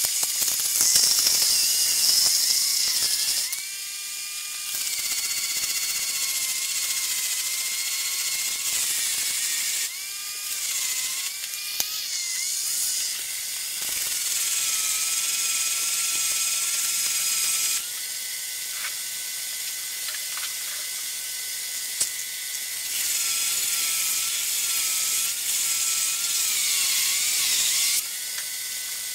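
A small electric power tool whining as it spins a brass rifle cartridge case against an abrasive pad, with a steady gritty sanding hiss. The motor's pitch wavers and dips as pressure comes on and off. The hiss drops back and picks up again several times.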